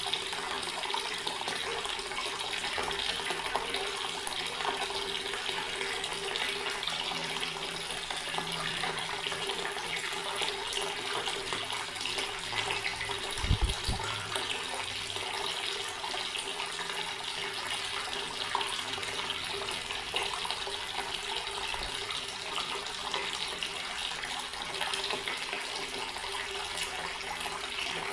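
Water running steadily from an outdoor tap, splashing continuously, with a brief low thump about halfway through.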